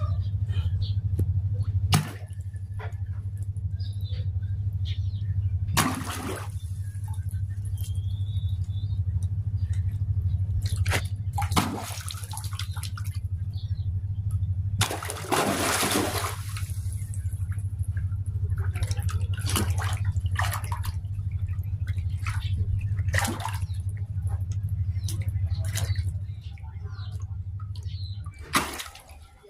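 Water splashing and sloshing in irregular bursts over a steady low hum.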